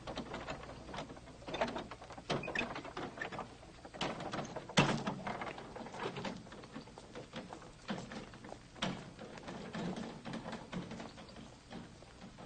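Scattered knocks, scuffs and footsteps of several people moving about, with one sharper knock about five seconds in.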